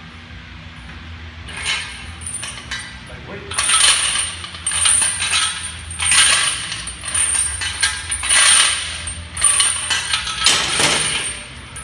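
Steel lifting chains hung from a barbell clinking and rattling as the links pile onto the floor and lift off again during bench press reps, a burst with each rep about every two seconds.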